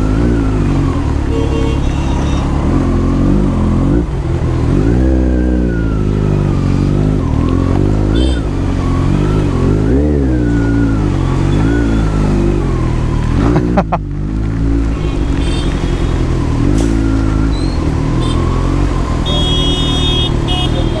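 Motorcycle engine running under the rider, its pitch rising and falling again and again as it accelerates and eases off through traffic.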